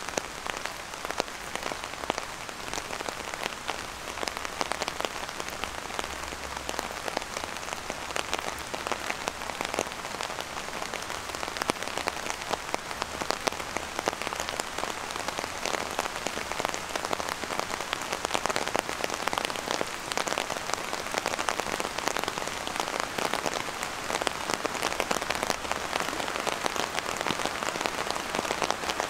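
Steady rain falling, a dense spray of small drop ticks over a continuous hiss, with no pause or change.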